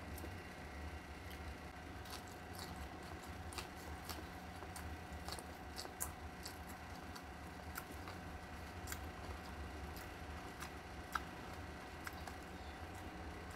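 Close-up eating sounds of a person chewing food eaten by hand, with many small scattered mouth clicks, over a steady low hum.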